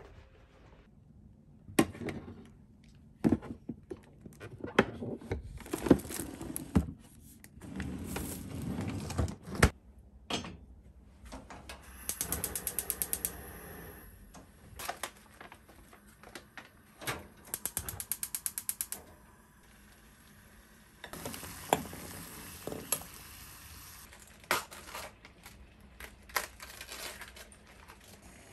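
Kitchen handling sounds: silicone storage bags and containers knocked and set down. Then a gas stove's igniter clicks rapidly in two bursts of about a second and a half each. Near the end come more rustling and knocks as cabbage leaves are handled.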